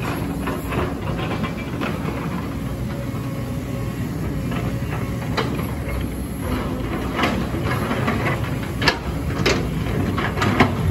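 Diesel engine of a JCB tracked excavator running steadily, with sharp knocks and clatter of rock and debris being dug and dropped, more frequent in the second half.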